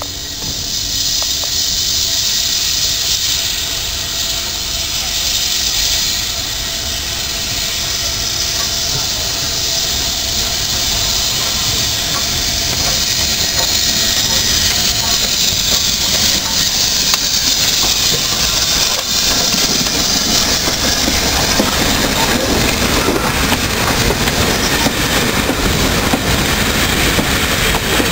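BR Standard Class 7 'Britannia' steam locomotive 70013 Oliver Cromwell drawing in and passing with a loud, steady hiss of steam. From about two-thirds of the way in, its coaches roll by with a clickety-clack of wheels over the rail joints.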